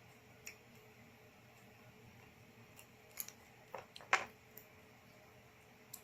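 A few short, sharp clicks and taps over quiet room noise, the loudest a little past the middle.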